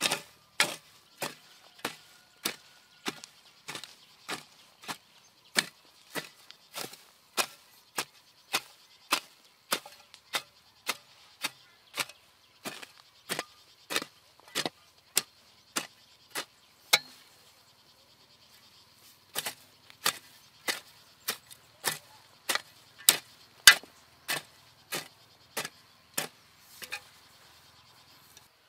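Steel hoe blade chopping into dry, grassy soil in regular strokes, about three every two seconds. The strokes pause for about two seconds partway and stop near the end.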